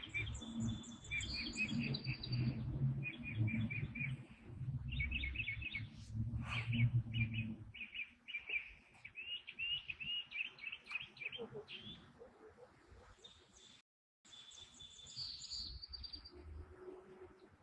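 Small birds chirping in repeated quick runs of short, high notes, with a low rumble underneath for the first half that stops about eight seconds in. The sound cuts out completely for a moment about fourteen seconds in.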